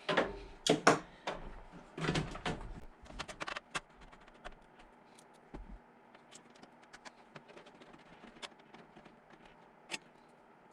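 Knocks and light clicks of hands working inside a PC case with a screwdriver, removing a fan to make room for the motherboard. A few heavier knocks come in the first few seconds, then only sparse small clicks and ticks.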